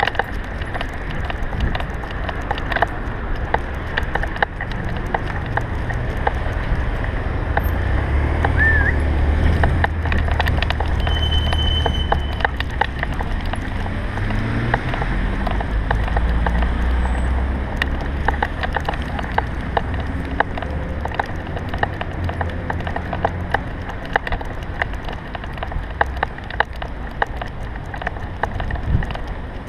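Dense, irregular clicking and tapping as a dog walks with a GoPro strapped to its chest harness, from its steps and the jostled camera mount. Under it runs a low rumble of passing traffic that swells for about ten seconds in the middle.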